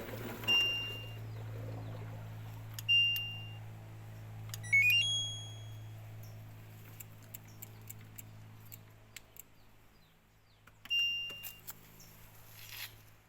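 Washing machine control panel beeping: three single high beeps and a quick rising jingle of short tones about five seconds in. Under it a steady low electrical hum, typical of a jammed drain pump motor humming without draining, fades out about two-thirds of the way through.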